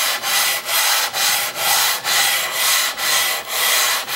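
Cast-iron side of an old Record hand plane being rubbed back and forth on abrasive wet/dry paper, an even gritty scraping in regular strokes at about two and a half a second. The strokes are dressing the plane's rough factory-ground sides flat.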